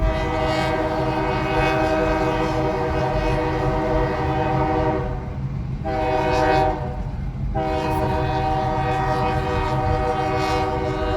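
Great Lakes Central diesel locomotive's chime air horn sounding a long blast, a short blast, then another long blast, over the steady low rumble of the passing train.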